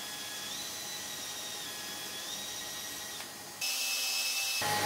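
Cordless drill turning a small bit through metallized epoxy under almost no force, with a vacuum hose drawing off the dust beside the bit; the steady whine steps up and down in pitch. About three and a half seconds in it gets louder and changes tone as a drill bores into the top edge of the part.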